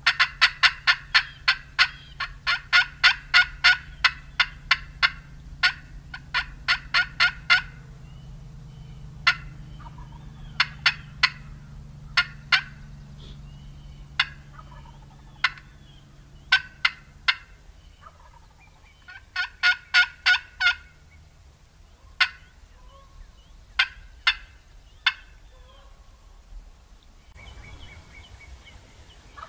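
Turkey cutting: fast runs of loud, sharp clucks through about the first eight seconds, then scattered single clucks and another quick run about twenty seconds in, over a low steady hum that fades out partway through.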